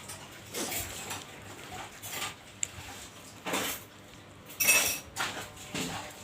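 Mukbang eating sounds: a spoon or utensil clinking against a bowl, and short wet bursts of eating, about half a dozen times.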